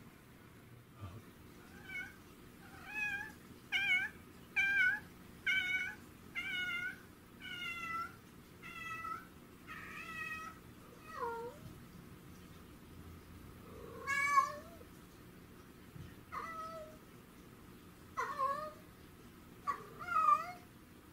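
A domestic cat meowing over and over. Short meows come about one a second for several seconds, then a few more spaced-out meows follow, some sliding down in pitch.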